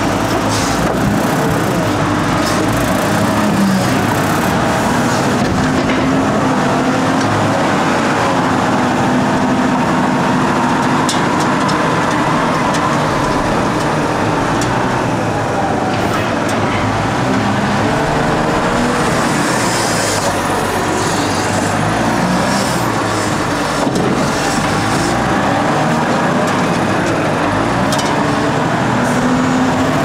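Volvo L150H wheel loader's diesel engine running, its pitch drifting up and down as the machine drives and works.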